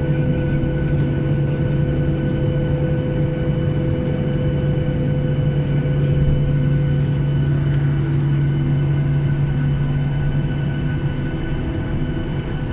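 Steady vehicle engine drone with a low rumble and constant tones that do not change in pitch.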